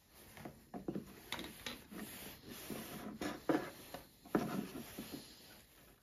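Small hobby razor saw cutting into an RC plane elevator, with short, uneven scraping strokes about once or twice a second.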